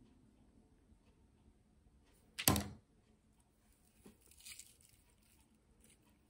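Quiet work table with a single short knock about two and a half seconds in, as a long wooden stick is set down on the paper-covered table. A soft rustle follows as hands handle a clay leaf.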